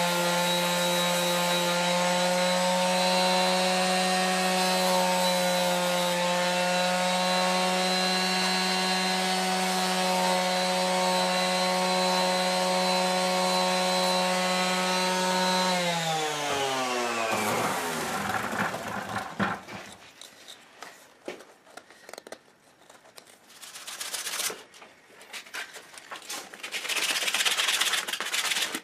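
Bosch electric sander running at a steady pitch, switched off about sixteen seconds in, its whine falling away as it spins down. After it stops, light irregular clicks and scrapes.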